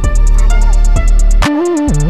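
Background music with a steady beat of quick high ticks, a melody that steps up and down, and a deep steady bass.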